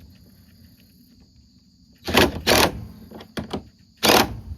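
Brush ear saver strip and its metal clips scraping and clicking against a corn head snoot's sheet metal as the brush is shifted into position: three short loud scrapes about two, two and a half and four seconds in, with lighter clicks between.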